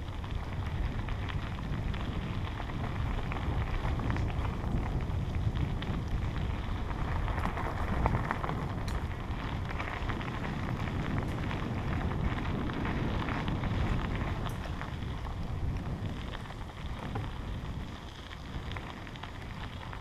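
Bicycle tyres rolling over a gravel trail with a steady crackling crunch, under a low rush of wind on the bike-mounted action camera's microphone. It eases off somewhat in the last few seconds.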